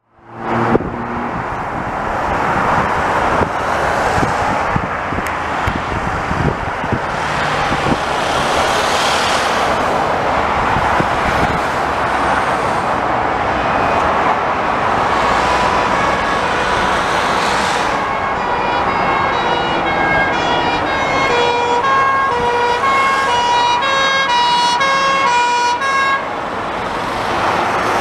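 Steady road traffic noise from passing cars, with a fire service Steyr-Puch 4x4's two-tone siren coming in faintly about halfway in and growing louder, stepping back and forth between two pitches as the vehicle approaches, until it passes close near the end.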